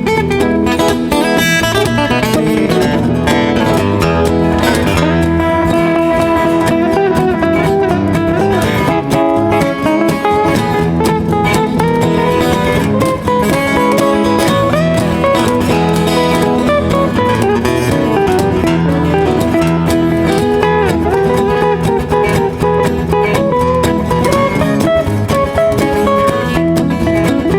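Instrumental break of a country song played on acoustic guitars, with a melody moving over strummed rhythm guitar and a cajon keeping the beat.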